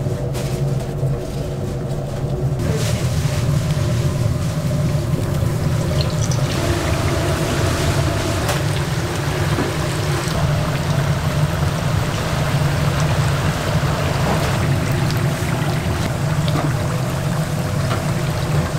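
Kitchen cooking sounds: a steady low hum with a running hiss of liquid that comes in about three seconds in.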